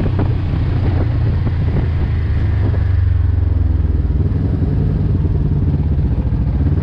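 Polaris RZR side-by-side's engine running steadily as it drives, heard from inside the open cab, with some light rattling in the first couple of seconds.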